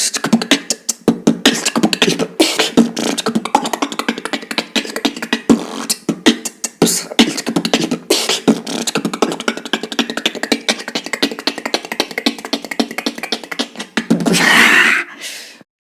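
Beatboxing: a fast, dense run of clicks and percussive mouth sounds, with a longer hiss about a second before the end.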